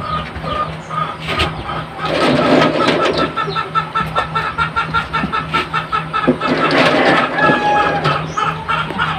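Chickens clucking in a fast run of short, evenly repeated calls, several a second, over a steady low hum.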